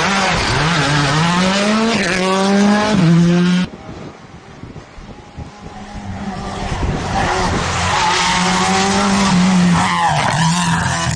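Rally car engine revving hard as the car accelerates through the gears, cutting off suddenly a little over three seconds in. Then a rally car engine rises again from a distance and grows loud, with brief dips in pitch at gear changes near the end.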